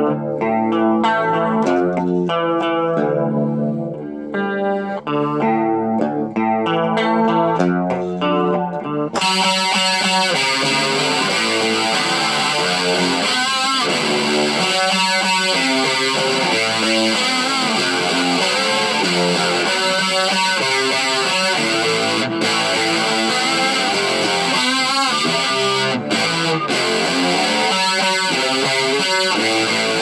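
Electric guitar played through an effects box: picked, fairly clean notes for about nine seconds, then it switches suddenly to a heavily distorted tone for fast riffing.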